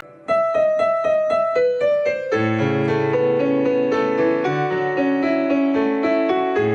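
Piano playing: a quick run of repeated single notes, then fuller chords over a bass line from about two seconds in.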